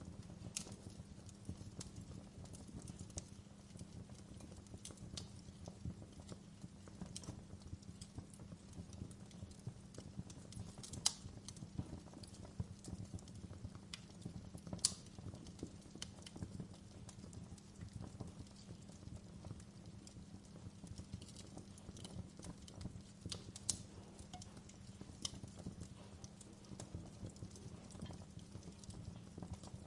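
Wood fire crackling in a stone fireplace: irregular sharp pops and snaps over a low, steady rumble, with a few louder pops about a third of the way and halfway through.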